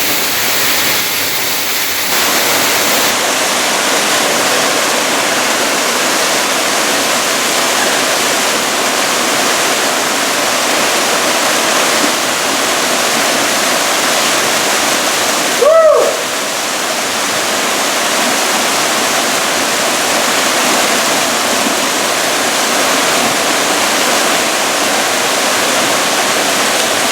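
Waterfall rushing close by, a steady, loud, even rush of water. About sixteen seconds in, a brief louder sound rises and falls in pitch over the rush.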